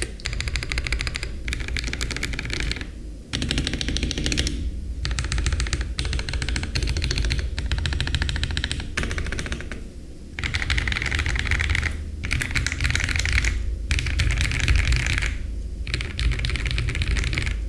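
Fast typing on a Feker IK75 mechanical keyboard with hand-lubed Gateron Yellow linear switches, a polycarbonate plate and PBT keycaps: dense runs of keystrokes broken by short pauses every second or two.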